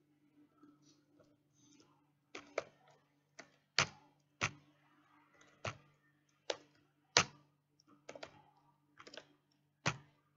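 Computer keyboard typing: about a dozen separate sharp keystrokes at an uneven pace, over a faint steady low hum.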